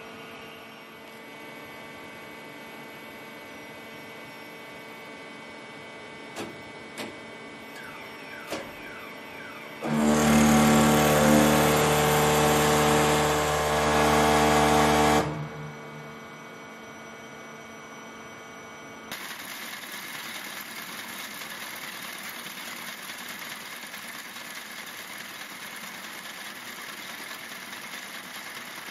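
A friction-welding rig rubbing wooden strips together under pressure, a loud steady buzz lasting about five seconds, preceded by a machine hum and a few clicks. About two-thirds in, a braiding machine starts up with a steady whirring clatter.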